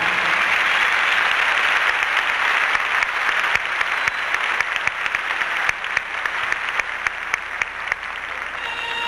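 Audience applauding, the clapping thinning to scattered separate claps before music comes back in near the end.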